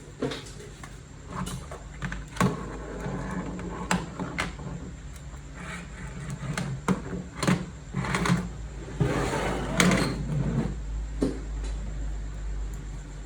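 Handling noises from objects being worked by hand: scattered sharp clicks and knocks, with a longer scraping rub a little past the middle.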